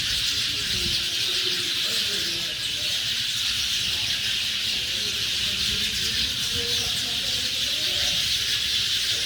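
Dense, unbroken chorus of many small birds chattering together in the treetops, with a low rumble underneath.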